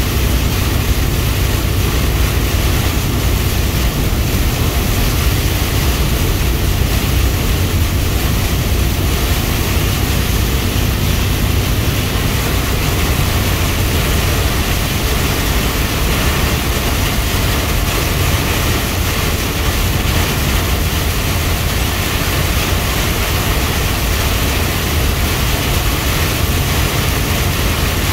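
Heavy rain on a moving vehicle, heard from inside the cab: a steady, loud hiss of rain and road spray over a low rumble of road and engine.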